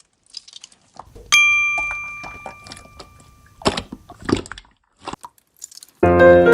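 A single bright bell-like ding that rings out and fades over about two seconds, amid a few soft clicks and crinkles. Piano music starts near the end.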